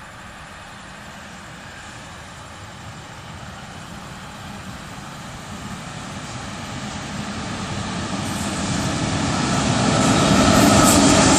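A train led by an electric locomotive approaching along the track, its rumble growing steadily louder for about ten seconds and loudest near the end as the locomotive comes alongside.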